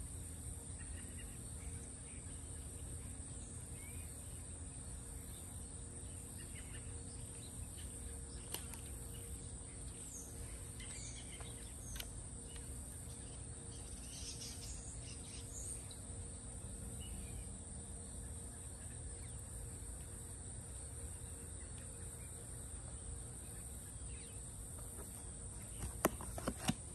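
Outdoor summer ambience: a steady high insect buzz, with a few bird chirps in the middle and a cluster of sharp clicks near the end.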